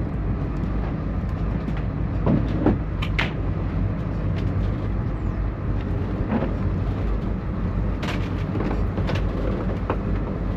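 Motor boat's engine running steadily under way, with the hull knocking and splashing now and then through choppy water.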